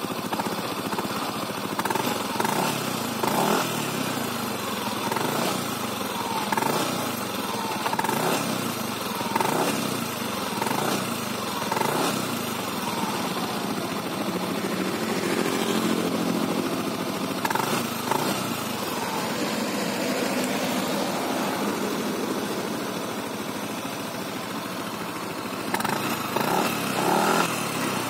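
Yamaha NMAX scooter's single-cylinder four-stroke engine running through its completely stock exhaust, revved up and down over and over with throttle blips, with a small burst of blips near the end. A smooth, subdued note that the owner finds too flat.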